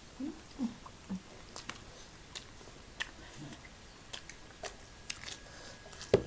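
Close-up chewing and biting of food: scattered small crunches and wet mouth clicks, with a sharper, louder click about six seconds in.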